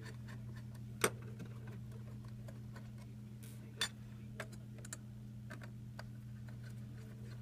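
Phillips screwdriver turning small screws out of a tracker's case, with scattered light clicks and ticks and one sharper click about a second in, over a steady low hum.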